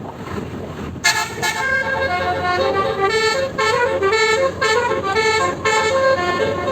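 Bus basuri (telolet) musical horn playing a fast tune of rapidly changing notes in the continuous 'ngoyod' style, starting suddenly about a second in over wind and road noise.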